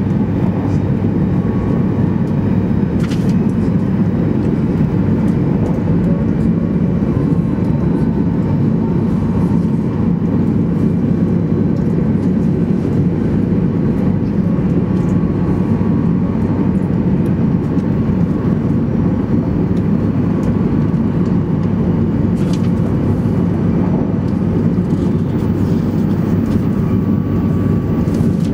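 Cabin noise of a 200 series Shinkansen running at speed, heard inside the passenger car: a steady, even rumble of wheels on rail and rushing air, with two faint ticks.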